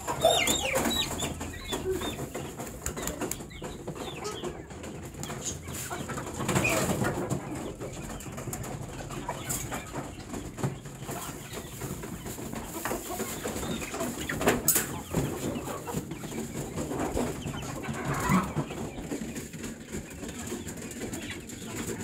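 Chickens clucking and chirping in and around wire coops, with short calls scattered throughout. A single sharp knock comes about two-thirds of the way through.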